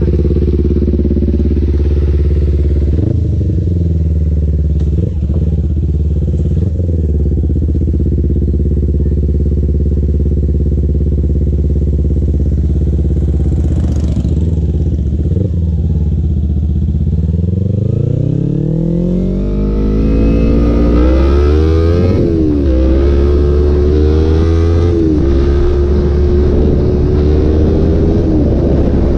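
Kawasaki Ninja 250 FI's parallel-twin engine idling steadily with a few short throttle blips. Then it revs up as the bike pulls away, its pitch rising and dropping sharply twice at the upshifts, and settles into steady riding.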